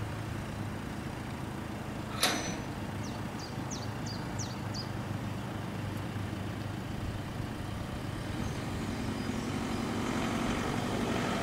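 Steady low hum of a Class 142 Pacer's diesel engine running some way off, growing louder toward the end. A single sharp clank comes about two seconds in, followed by a short run of about six high bird chirps.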